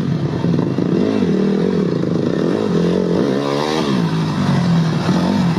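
Dirt bike engine running at idle, blipped twice: a short rev about a second in and a bigger rev a little past three seconds, each dropping back to idle.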